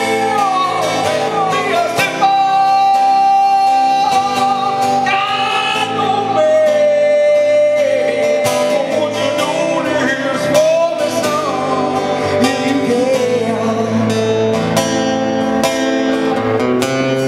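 A man singing long held notes into a microphone over a strummed acoustic guitar, played live.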